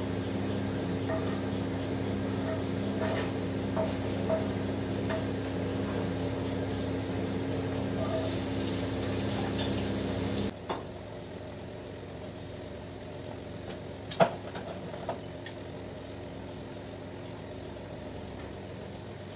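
Wooden spatula stirring and tapping vegetables frying in a wok on a gas stove, over a steady hum. About ten seconds in the sound cuts to a quieter hiss, with one sharp click a few seconds later.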